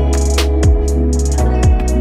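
Background electronic music with a beat of deep kick drums and sharp percussion hits over held synth chords.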